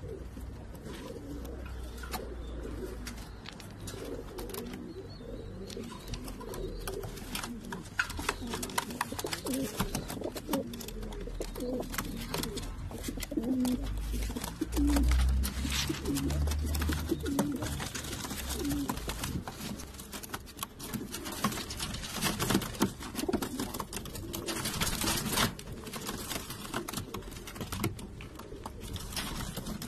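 Several domestic fancy pigeons cooing throughout a loft, over frequent small clicks and scuffles of feet and wings. About halfway through there is a short burst of loud low thumps from wing-flapping.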